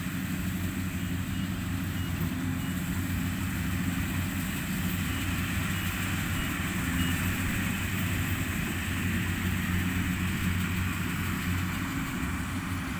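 Rice combine harvester's diesel engine running steadily as it works the field, a low, even drone.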